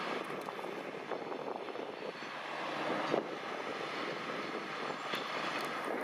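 Two steam locomotives, an R class and a K class coupled together, moving slowly over the tracks: a steady rushing hiss of steam with a few sharp metallic clanks.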